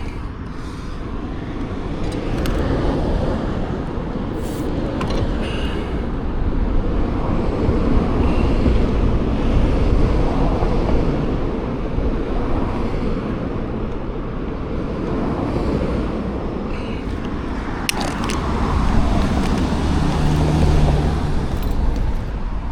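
Road traffic with wind rumbling over the microphone, swelling twice as cars pass, about a third of the way in and again near the end.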